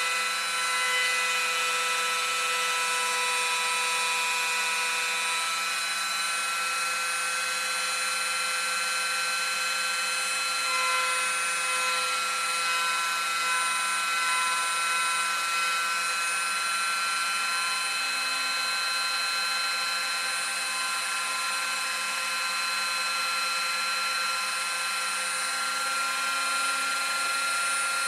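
A handheld rotary tool used as the spindle of a 3D-printed CNC router, running at high speed and milling a wood board: a steady high-pitched motor whine whose pitch wavers slightly as the bit cuts.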